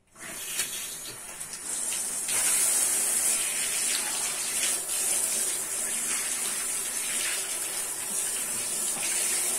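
Hand-held bathtub shower turned on at the mixer tap, water spraying into the tub and over a small dog standing in it. A steady hiss of running water that starts at once and grows louder over the first two seconds.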